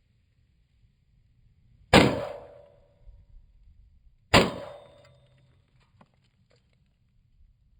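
Two rifle shots about two and a half seconds apart, each sharp crack trailing off in a short ringing echo.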